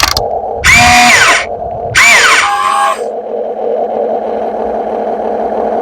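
Radio-controlled model excavator's motors whirring in two loud bursts, each rising and then falling in pitch, over a steady electric hum.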